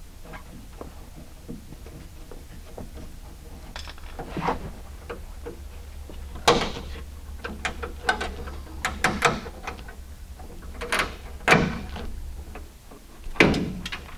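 Scattered clicks and knocks of hand work on a car door: a screwdriver taking out a Phillips screw and the old belt line window molding being worked loose and pulled off. A quick run of small clicks comes in the middle, and a few louder knocks stand out near the middle and near the end.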